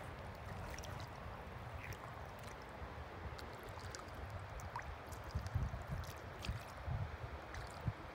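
Wind rumbling on the microphone over a faint wash of shallow water, with small scattered clicks; the rumble gets gustier about five to seven seconds in.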